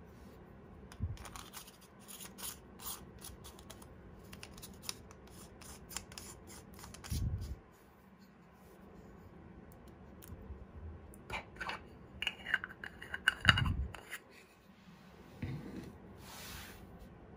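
Handling noise of a Rodenstock TV-Heligon 42mm f/0.75 lens and its E-mount adapter being twisted together by hand: small clicks, rubbing and metal scraping, with a short squeaky scrape in the second half and a couple of dull knocks.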